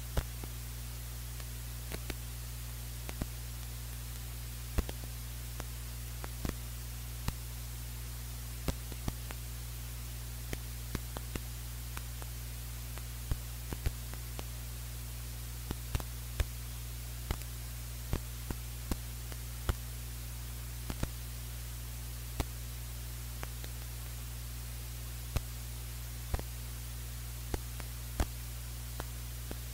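Steady low electrical hum with faint irregular crackles and clicks and a light hiss, with no music playing.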